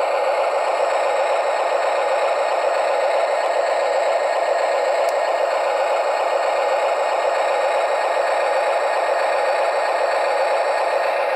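Huina RC wheel loader's small electric drive motor and plastic gearing running, a steady rattling as the model creeps forward.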